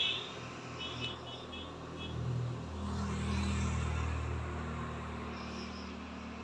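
Low rumble of a passing vehicle that swells about two seconds in and then fades, with insects chirping in short pulsed bursts.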